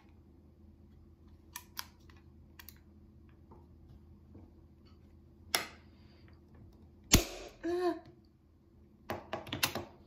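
Hand-held staple gun (tacker) being worked: small clicks as it is handled and set against a wooden board, then a loud sharp snap as it fires a staple about seven seconds in, and a quick run of further clicks and snaps near the end.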